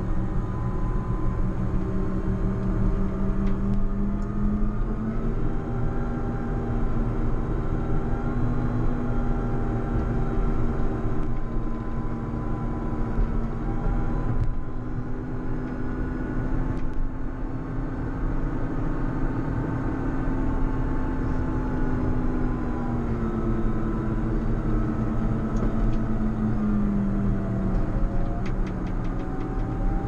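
JCB Fastrac 4220 tractor's diesel engine running steadily under load as it pushes a front snow plough, over a low rumble. The engine note rises about five seconds in, holds, and drops back again near the end.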